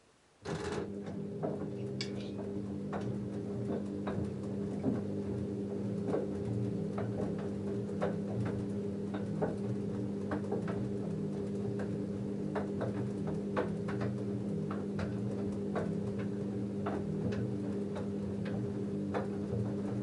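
LG F10A8HDS5 front-loading washing machine tumbling a wet load of jeans during the wash: the direct-drive motor turning the drum hums steadily, with frequent light clicks and knocks from the tumbling load. The drum starts turning suddenly about half a second in.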